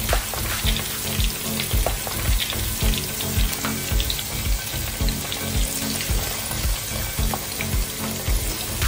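Crinkle-cut fries deep-frying in hot oil: a steady sizzle full of fine crackling, with a spatula stirring them near the end. A steady low beat, about two a second, runs underneath.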